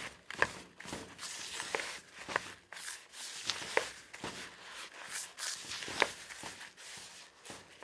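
A spoon stirring and scraping a dry, crumbly corn-flour dough mix in a plastic bowl, giving a rustling scrape with scattered short taps.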